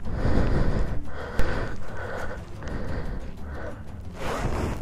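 A motorcyclist panting hard inside his helmet, quick rhythmic breaths from exertion on a steep rocky climb, over a low rumble of wind on the helmet microphone. A sharp click sounds about a second and a half in.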